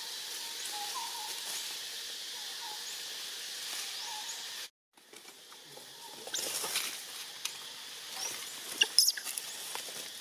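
Steady high hiss of forest ambience, then, after a brief cut, irregular crackling and rustling of dry leaves and undergrowth as young long-tailed macaques scramble and play, with a few short high squeaks near the end.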